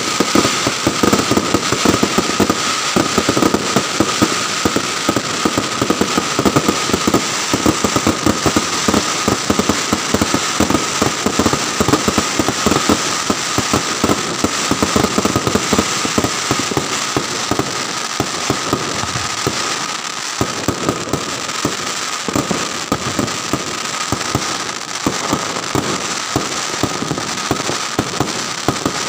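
Fireworks crackling: a loud, dense, continuous stream of rapid pops and crackles.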